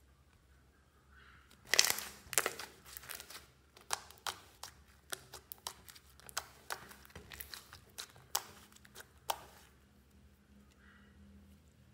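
Makeup slime being lifted, stretched and pressed by hand, giving a rapid run of sticky popping and crackling clicks. The clicking starts about two seconds in, is loudest at first, and thins out near the end.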